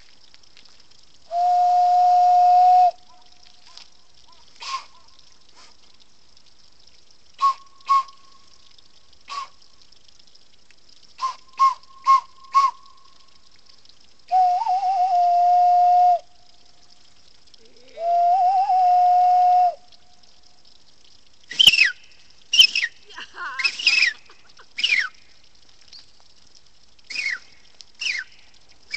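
Cupped-hand whistling: three long, steady, low notes of about a second and a half each, with clusters of short, higher toots between them. In the last third, a run of quick, high, falling chirps takes over.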